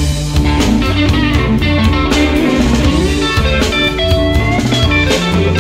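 Background music: blues-rock with electric guitar over bass and a drum kit.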